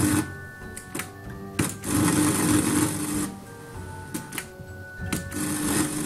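Marantz 2218 receiver's power push-button clicking as it is pressed, and twice a burst of hissing static with a steady hum comes through the speakers for about a second and a half. This is the noise the power switch makes, which the owner puts down to a dirty switch that needs cleaning.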